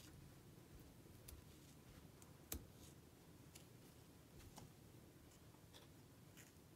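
Faint, irregular clicks of a tiny knife tapping a small wooden cutting board while green chillies are chopped, roughly one a second, the sharpest about two and a half seconds in, over quiet room tone.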